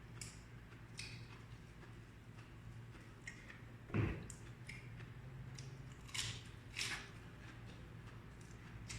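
Mouth eating sounds of raw vegetables: scattered crisp crunches and wet chewing, with one louder dull thump about four seconds in.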